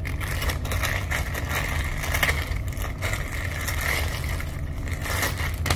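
Plastic packaging and a shirt being handled and rustled, over a steady low rumble.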